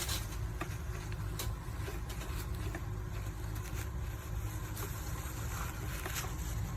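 WPM ZD-10T electric coffee grinder's motor running steadily, with irregular clicks over the hum.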